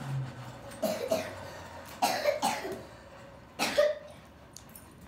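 A person coughing in short, sharp bouts, three times over about three seconds, the middle bout a double cough.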